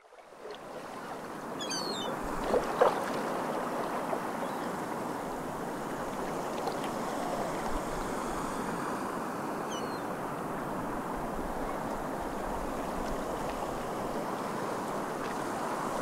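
Steady sea ambience of waves washing, fading in from silence over the first second. Short high bird calls come twice, about two seconds in and again near ten seconds, and a couple of louder knocks sound about two and a half seconds in.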